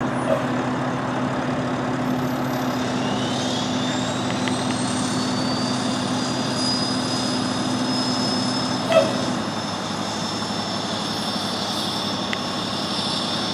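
Fire engine's diesel engine idling with a steady low hum and a high whine that rises over a few seconds and then holds; a single sharp thump about nine seconds in, after which the low hum drops away.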